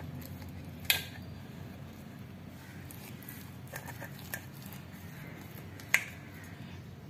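Knife blade cutting through soft coconut burfi and clicking sharply on the stainless steel plate beneath it, twice: about a second in and near the end, with a few fainter taps between, over a low steady hum.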